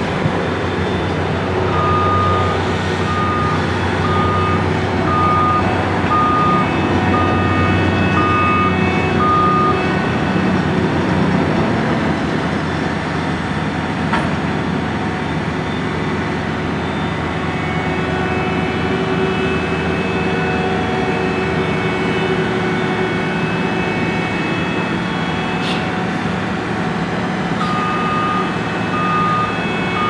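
Asphalt paver's diesel engine running steadily while laying asphalt. A backup alarm beeps about once a second for the first ten seconds, stops, and starts again near the end.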